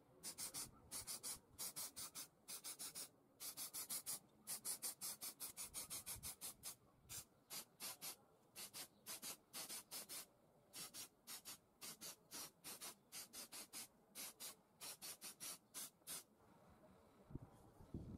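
Spray-paint can hissing in many short bursts, about three a second, as metal is painted; the bursts stop about sixteen seconds in.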